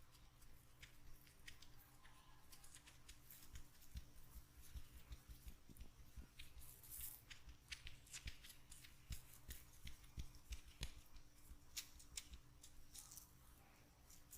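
Hands massaging an oiled scalp: faint, irregular crackling and squishing of oily hair under the fingers, with soft low thuds of the hands on the head.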